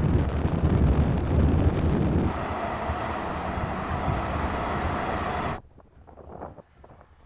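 BMW 3 Series cars running hard at speed in a rolling drag race: steady engine, road and wind noise. It drops off suddenly about five and a half seconds in to near quiet.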